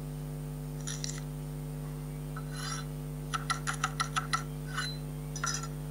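Stop-motion cooking sound effects of a knife dicing on a wooden cutting board: a few soft scrapes and knocks, then a quick run of about eight sharp taps about three and a half seconds in. A steady electrical hum runs underneath.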